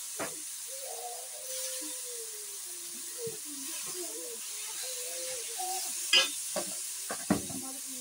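Noodles and shredded cabbage sizzling in a hot wok with a steady hiss. A few sharp utensil knocks come through, the loudest about six seconds in and again just past seven.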